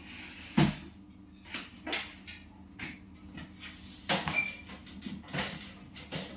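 Knocks and clatter of kitchen appliances and their parts being handled and set down on a wooden shelf, a string of sharp knocks with the loudest about half a second in. A brief high note sounds about four seconds in.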